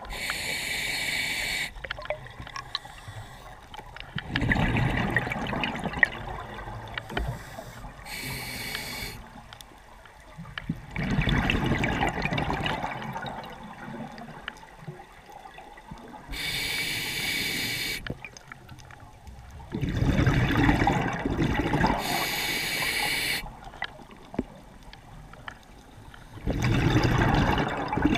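Scuba diver breathing through a regulator underwater: a short hissing inhale, then a longer burst of bubbling exhaled air, about four breaths in a slow, even rhythm.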